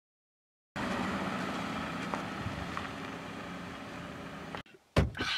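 A car driving along a road: a steady engine hum and tyre noise that starts abruptly after a moment of silence, slowly fades and cuts off, followed about a second later by one loud, sharp thump.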